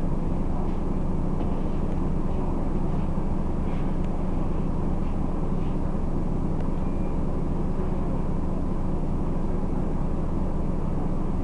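Scania Omnicity bus's diesel engine running steadily, heard inside the passenger saloon as a continuous low drone.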